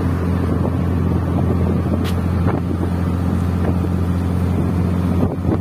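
Small motorboat's engine running at a steady low drone while under way.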